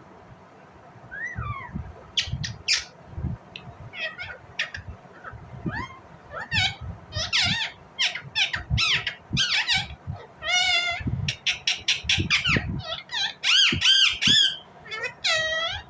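Indian ringneck parakeet chirping and squawking in quick short calls. The calls are sparse at first and come thick and loud from about six seconds in.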